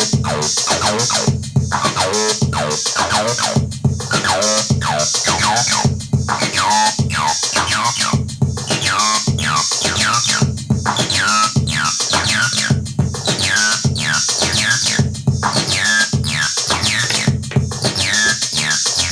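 Acid-style electronic music from a Behringer TD-3 bass synthesizer: a repeating sequenced bassline whose notes sweep downward through its resonant filter, over a steady drum-machine beat.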